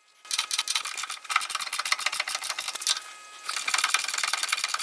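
Hand ratchet clicking rapidly as it runs down a bolt on the lower A-arm clamp. The clicking comes in two runs with a short pause about three seconds in.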